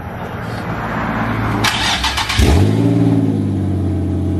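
Nissan 350Z's 3.5-litre V6 being started for the first time after a clutch install. It cranks for about two seconds, catches, flares up briefly in revs and settles into a loud steady idle, running with the Y-pipe removed so the exhaust is open just past the headers.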